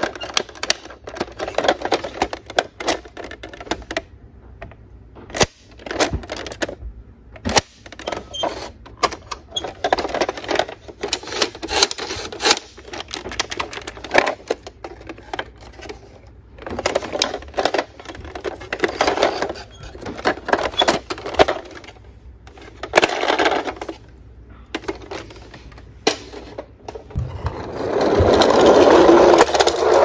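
Plastic toy fire truck being handled and turned over in a cardboard box of toy vehicles: scattered clicks, knocks and scraping rustles. Near the end there is a louder, continuous rolling rumble as the truck runs on its plastic wheels down a slope.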